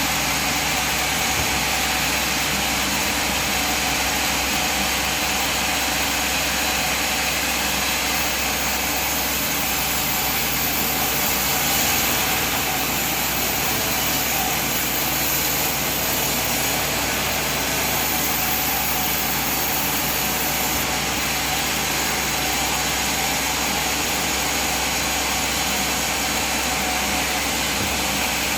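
Sawmill machine running steadily with an even, unchanging machine noise.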